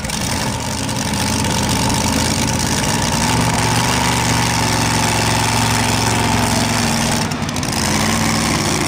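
Light modified pulling tractor's V8 engine running at the start line, mostly a steady idle that rises and falls a little midway.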